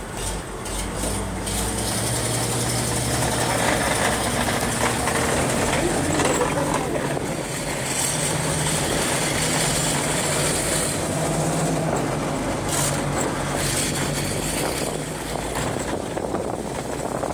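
Halftrack driving along, its engine running under load with road and track noise, heard from the canvas-covered rear. It gets louder about two seconds in, and the engine note goes higher around the middle.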